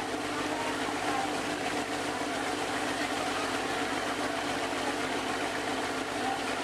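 A riverboat's engine drones steadily with an even low pulse while the boat is under way, over a steady hiss of water rushing past the hull.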